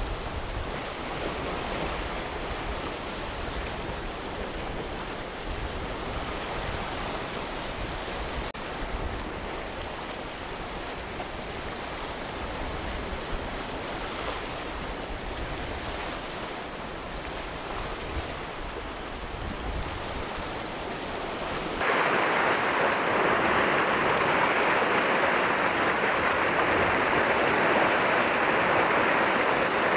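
Sea surf washing over a rocky shore. About 22 seconds in it switches abruptly to a louder, closer wash of surf breaking on the rocks.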